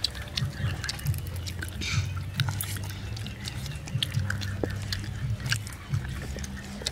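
Scattered clicks and crunches of people eating roasted meat off wooden skewers, over a steady low rumble.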